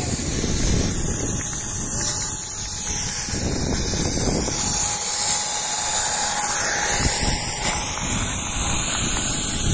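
Small model jet turbine engine running at idle after landing, a steady high whine with a fainter lower tone, over an uneven low rumble.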